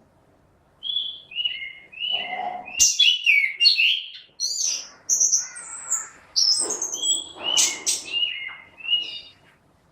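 Orange-headed thrush singing in full voice: a fast, varied run of whistled notes, quick slurs and chattering phrases that starts about a second in and runs until shortly before the end.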